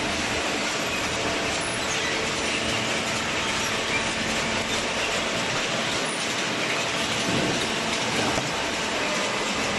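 Horizontal waste paper baler running: a steady, dense mechanical noise with a faint hum underneath.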